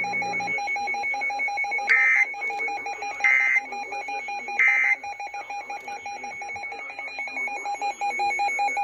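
Three short bursts of Emergency Alert System data tones, each about a third of a second long and a little over a second apart: the SAME end-of-message code that closes an alert. Under them a steady trilling alarm tone runs throughout.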